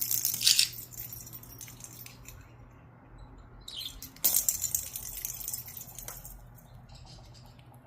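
A budgie's toy rattle ball jingling and rattling in short bursts as the bird pushes it about, once near the start and again for about a second in the middle.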